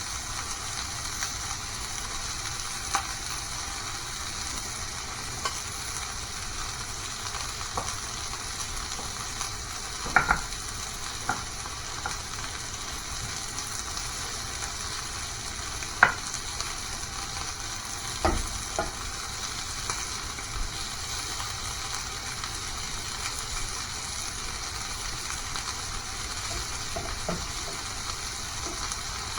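Food sizzling steadily in a hot frying pan, with a few sharp knocks, the loudest about ten and sixteen seconds in.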